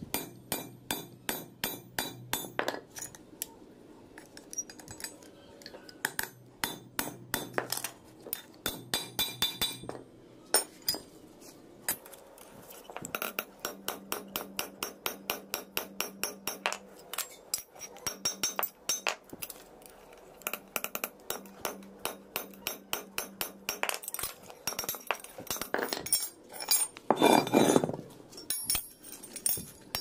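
Small hammer tapping a steel flat bar held in pliers on a steel anvil block, bending it into a curved door-latch piece: runs of quick, ringing metal-on-metal blows, several a second, with one louder, longer clang near the end.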